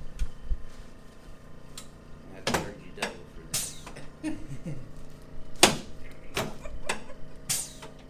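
Sharp clicks, knocks and rustles, about eight in all and loudest a little past the middle, from a patient shifting position on a padded chiropractic treatment table.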